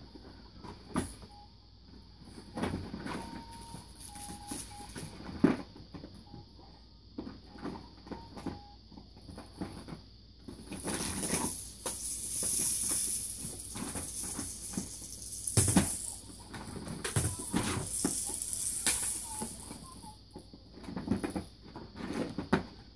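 Plastic toys clattering and knocking against each other and the sides of a plastic storage bin as a baby rummages through them, with a long stretch of high, crinkly rustling in the middle.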